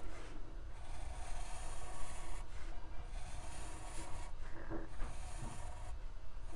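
Black permanent marker drawing long lines on paper: the felt tip rasps across the sheet in several strokes with short pauses between them.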